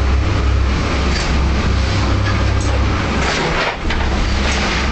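Boat's engine droning steadily, heard inside the cabin, under the rushing wash of the sea and spray against the hull and windows in a rough swell. A louder surge of water noise comes a little past three seconds in.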